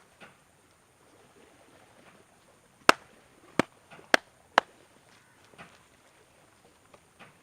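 Four sharp snapping cracks in quick succession, coming closer together over about two seconds, from a barber's hands during a head and neck massage, with faint rubbing and tapping around them.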